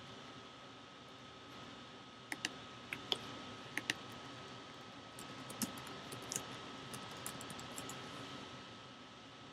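Typing on a computer keyboard: scattered key clicks, then a quicker run of keystrokes, over a faint steady hiss with a thin steady tone.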